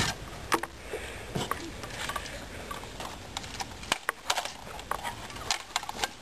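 Irregular clicks and knocks from handling plastic toy guns, with a sharp knock as the first one is picked up off the ground.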